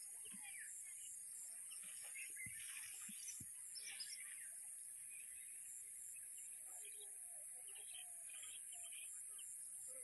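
Faint outdoor ambience of scattered bird chirps over a steady high hiss.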